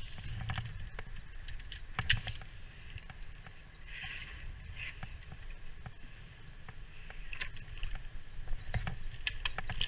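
Metal climbing hardware, carabiners and rope-access devices on a harness, clinking and scraping as it is handled, in scattered sharp clicks with one louder knock about two seconds in.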